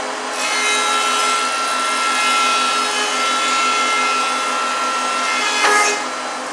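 Thickness planer cutting a board. Starting about half a second in, the steady running hum rises into a louder, high-pitched cutting whine with many steady tones. It holds for about five seconds, then the board exits near the end and the machine drops back to running free.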